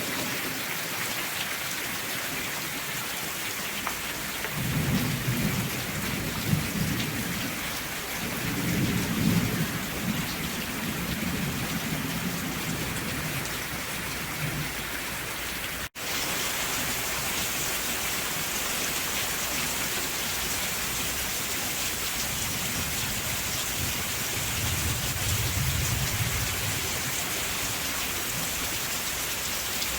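Steady heavy rain, with low rolls of thunder rumbling three times: twice in the first half and once more near the end. About halfway through the sound cuts out for a split second.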